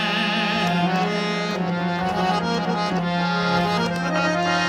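Harmonium playing an instrumental interlude in raag Bhairavi: steady reed notes over a held drone while the voice rests.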